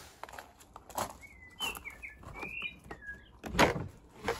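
Footsteps crunching on gravel, with a bird chirping a few times in the middle, then a louder clunk near the end as a shed door's latch is handled.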